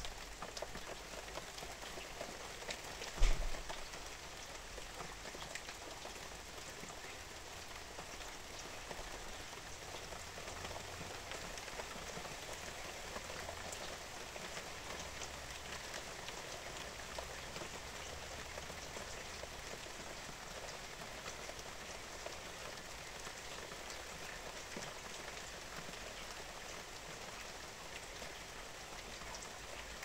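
Steady rain falling, with many individual drops ticking. A single sharp thump about three seconds in is the loudest sound.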